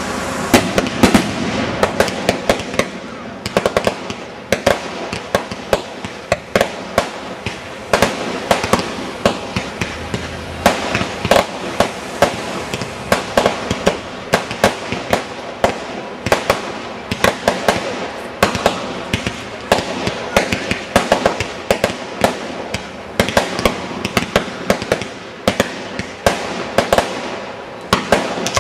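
Fireworks going off in a dense, continuous run of sharp pops and crackles, several a second, as sparks and colored stars shoot up from the ground and burst.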